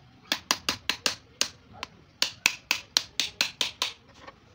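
Rapid sharp strikes, about four a second with a brief lull in the middle, on the handle of a screwdriver-like chisel being driven into the plastic lid of a small lead-acid battery to cut the case open.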